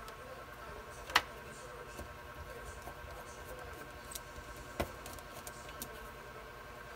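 Hands handling small electronic parts and a screwdriver on a workbench mat: a sharp click about a second in, another near five seconds, and a few light ticks over a faint steady hum.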